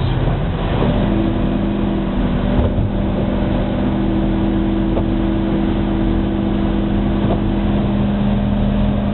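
Truck engine and road noise heard from inside the cab while driving: a steady drone with a low, even engine hum that settles in about a second in.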